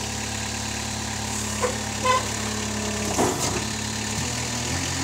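Moffett M5 NX truck-mounted forklift's engine running steadily at idle. About three seconds in its note wavers, then settles lower in two steps as a hydraulic lever is worked.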